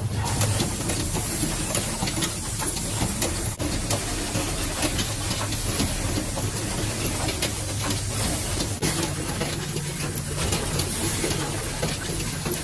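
Automatic assembly machine for five-hole electrical sockets running: a steady hiss over a low hum, with many small clicks and clacks from its mechanisms all the way through.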